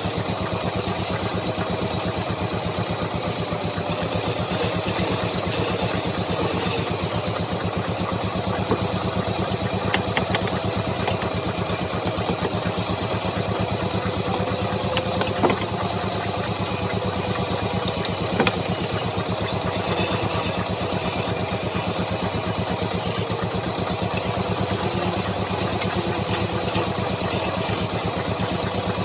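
Wood lathe running steadily with a constant motor hum, with a few short sharp clicks in the middle.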